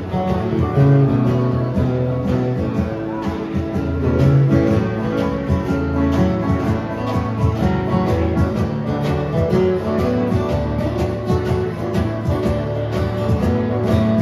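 Live old-time country band playing: strummed acoustic guitars with banjo and keyboard, in a steady dance rhythm.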